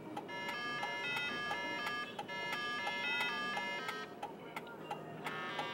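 Music: a bright melody of short, quickly changing notes over a light, evenly ticking beat, dropping away briefly about four seconds in.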